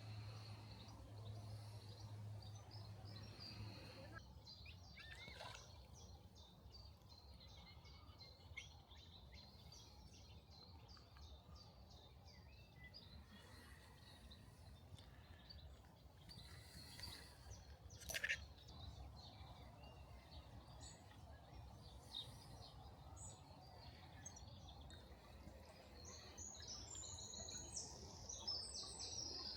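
Faint wild birdsong and scattered chirps over a low outdoor rumble, with a busier run of high song notes near the end. A single sharp click comes about two-thirds of the way through.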